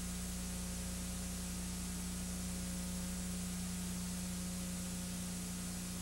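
Steady hiss with a constant low electrical hum and nothing else: the noise of the recording or transfer chain under a soundless home movie.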